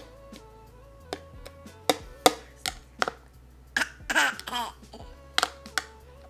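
A toddler's spoon clicking and scraping against a plastic suction bowl while he feeds himself: a string of sharp, irregular clicks. Around four seconds in, the toddler laughs out loud. Soft background music runs underneath.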